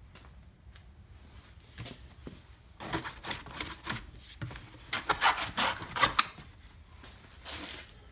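Cardboard packaging sleeve rustling and scraping against a hard plastic tool case as it is pulled off, in a run of rough rubbing noises from about three seconds in until near the end. Before that there are only a few faint taps.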